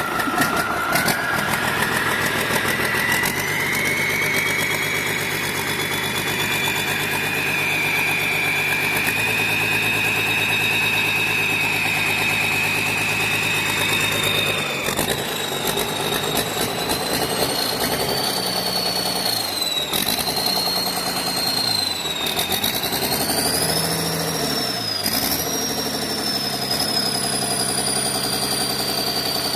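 Cummins 6BT inline-six turbo diesel running, on an engine whose turbocharger is leaking. A high whine rides over the engine, rising in pitch over the first several seconds, then shifting higher and wavering from about halfway through as the engine note changes.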